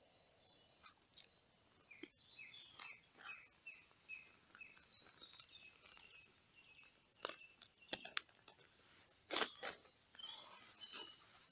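Rustles and a few sharp clicks as a nylon poncho's fabric and press studs are handled, the loudest about nine seconds in. Underneath, a faint bird song runs from about two to five seconds in: about eight short falling notes.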